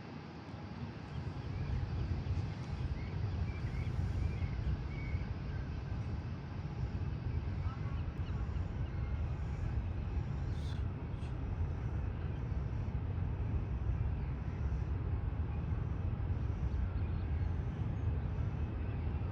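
Steady low rumble of a taxiing Boeing 787-8's jet engines, building over the first couple of seconds and then holding.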